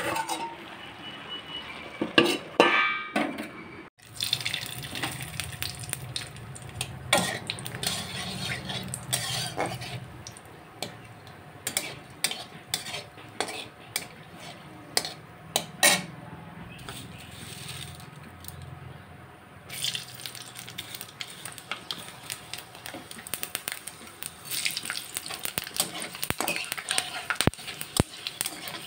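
A metal spatula clinks and scrapes against a kadai while hot oil sizzles with dried red chillies and bay leaves. From about two-thirds of the way through, the frying gets busier, with quick crackles as whole spices spit in the oil.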